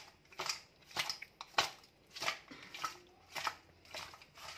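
A hand mixing raw fish pieces with salt and turmeric in a steel bowl: rubbing and squishing strokes repeated about twice a second.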